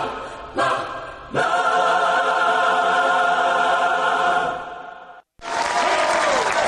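Choral jingle: voices sing a held chord, a short break, then a second long held chord that fades out about five seconds in. Just after, a different, louder burst of music begins.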